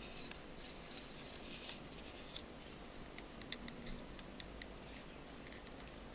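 Faint, scattered light clicks and ticks of small parts being handled inside an iPhone 5, as its antenna ribbon connectors are fitted and pressed into place.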